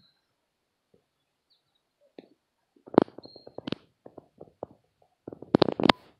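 Footsteps crunching and snapping through dry leaves and sticks, in a cluster about three seconds in and again near the end. A few short, faint high bird chirps.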